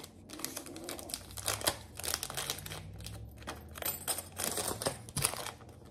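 Small packaging crinkling and rustling in the hands while a small item is unwrapped, with many quick little clicks.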